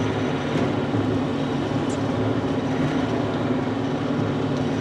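Diesel engine of a Bobcat machine running steadily at a low, even speed, warming up.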